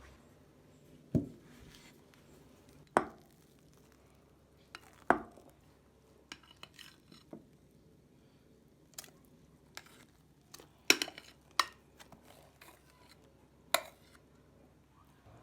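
Kitchen dishes and utensils being handled: scattered sharp knocks and clinks, about six louder ones spread out with lighter taps between.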